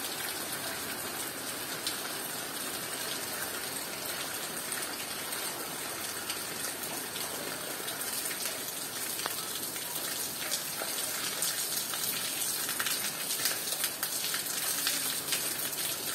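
Steady rain pattering on leaves and a wall, with water streaming and dripping off the foliage. It grows a little louder in the second half.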